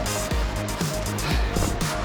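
Background music with a steady beat: a deep kick drum about twice a second under a held synth tone.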